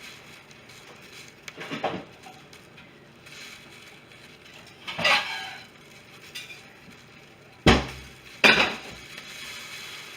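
Kitchenware being handled: four separate clinks and knocks of dishes and utensils, the loudest two about two-thirds of the way through.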